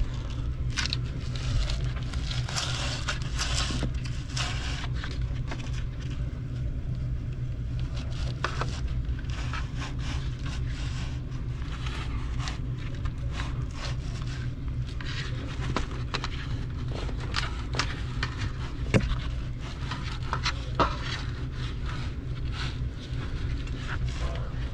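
Refrigerant line set (copper tubing in black foam insulation) being pulled by hand through a cramped ceiling space: irregular scraping and rustling with scattered small knocks and clicks, over a steady low hum.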